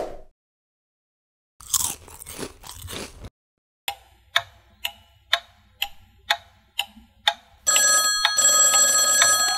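Dubbed-in sound effects: a brief crunching noise, then a run of about eight sharp, evenly spaced taps, roughly two a second. Near the end a louder sound with several held ringing tones comes in.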